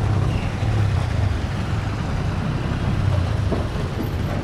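Motorcycle riding along a highway: a steady, low engine drone under road and wind noise.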